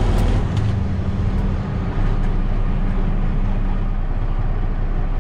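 A heavy vehicle's engine running steadily, a loud low drone, with a few sharp clicks in the first second and a half.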